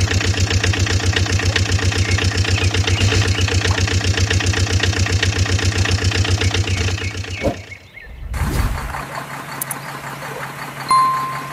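Truck engine idling with a steady, rapid chugging pulse, loud, stopping about seven and a half seconds in. After a short break a quieter engine hum with a brief low rumble follows, and a short electronic beep sounds near the end.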